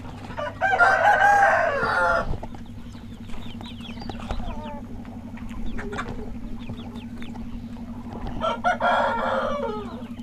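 Country-chicken rooster crowing twice, the crows about seven seconds apart, with lighter clucking and chirping from the flock in between, over a steady low hum.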